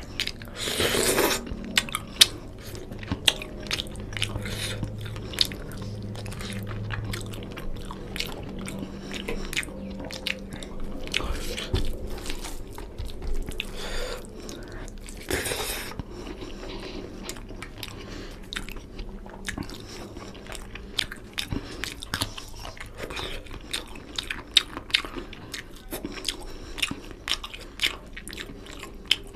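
Close-up chewing and biting of a mouthful of fried rice and chicken curry eaten by hand, with many small wet clicks. Two longer noisy bursts come about a second in and about halfway through.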